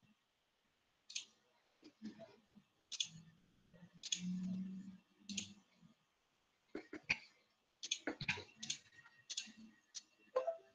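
Faint, irregular clicks of a computer mouse and keyboard being worked, a dozen or so spread unevenly, with a short low hum about four seconds in.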